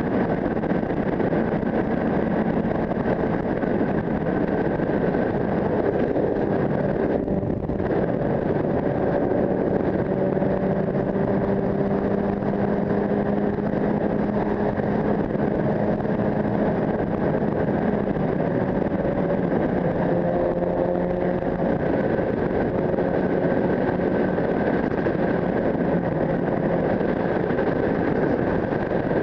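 Sport motorcycle engine running at a steady cruise, its note drifting slowly up and down in pitch, under a constant rush of wind noise on the helmet-mounted camera.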